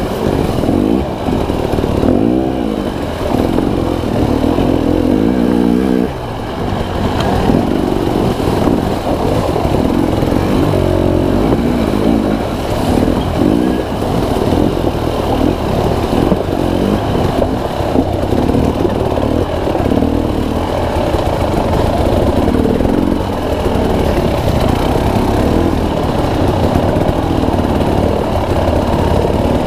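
Dirt bike engine revving up and down repeatedly, its pitch rising and falling with the throttle.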